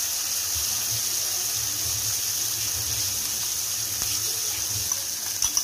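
Ground onion-tomato masala paste sizzling steadily in hot mustard oil in a kadhai, with a few light clicks near the end.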